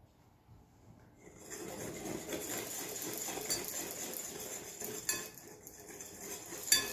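Wire whisk beating cake batter in a glass mixing bowl, the wires rattling and scraping against the glass as oil is drizzled in. The whisking starts about a second and a half in, with a sharp clink near the end.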